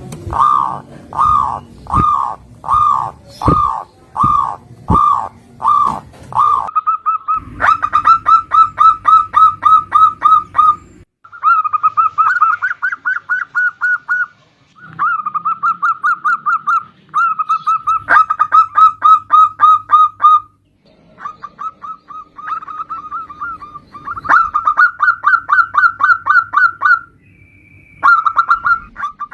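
Zebra dove (perkutut) calling. It starts with about eight slow, separate coos, then runs into long, fast trains of short staccato coos with brief pauses between them.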